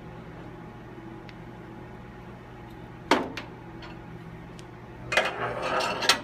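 Heavy metal collimator handled on a gamma camera's collimator cart: a sharp metal clunk about three seconds in, then about a second of sliding and scraping along the cart track that ends in a sharp clack as it locks into place. A steady mechanical hum runs underneath.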